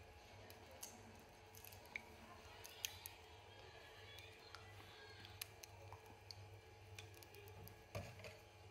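Near silence: a faint steady low hum with a few faint small clicks.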